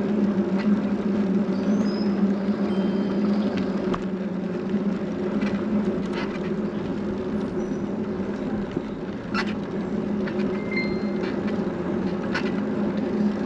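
Vehicle engine and road noise heard from inside the cabin while driving slowly: a steady low drone, with scattered light clicks and a few brief high chirps.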